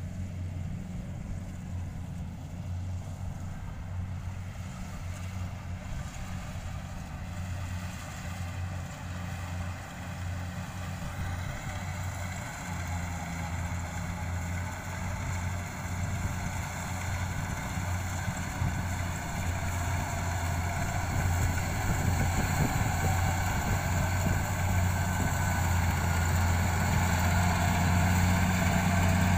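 Kubota DC70 rice combine harvester running as it cuts. Its diesel engine makes a steady low hum, with the whir of the cutting and threshing gear above it, and the whole sound grows steadily louder as the machine comes closer.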